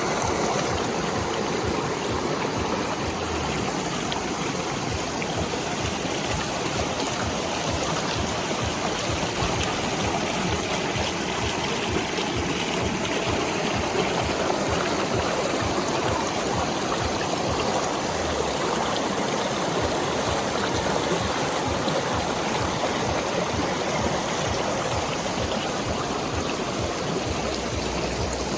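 Small waterfall in a stream, water falling and running steadily.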